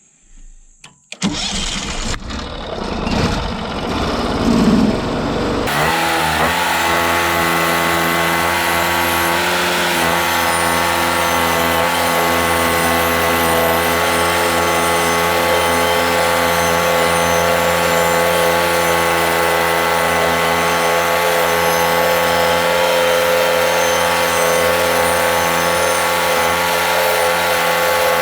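Gas engine of a Norwood MX34 portable bandsaw mill starting about a second in and running unevenly for a few seconds, then settling at about six seconds into a steady high-speed run.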